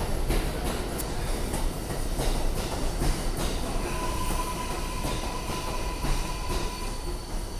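An R188 subway train on the 7 line pulling out and running, its wheels clacking over rail joints with a steady rumble. A thin steady whine comes in about halfway through and holds until near the end.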